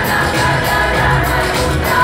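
A choir singing to musical accompaniment with a steady beat.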